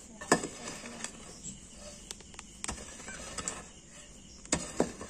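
A hand hoe digging into loose, dry soil: several sharp strikes of the metal blade into the earth, the loudest about a third of a second in, with scraping and crumbling of clods between them.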